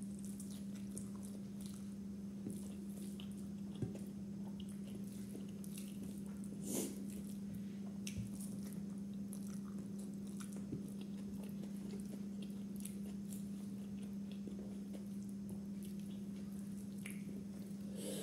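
A person eating biryani by hand: chewing, wet mouth smacks and the squish of fingers mixing rice on the plate. A steady low hum runs underneath.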